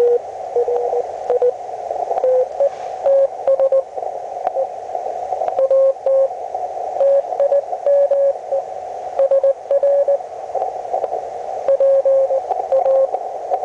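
Morse code (CW) from a Hendricks PFR-3A QRP transceiver's audio: keyed mid-pitched beeps in dots and dashes over a steady narrow band of receiver hiss. The beeps come at two slightly different pitches.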